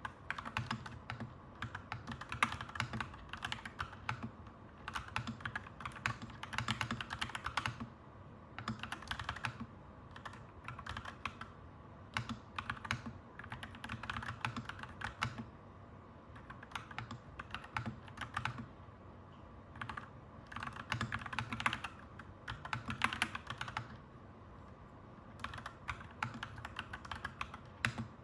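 Typing on a clacky mechanical keyboard, the keys clicking in quick runs of a second or two with short pauses between, over a steady low background hum.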